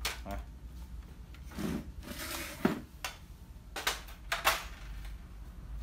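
Plastic clicks and knocks from an HP LaserJet 5200 laser printer being handled as its paper tray is pulled out, with a short sliding scrape about two seconds in followed by several sharp clicks.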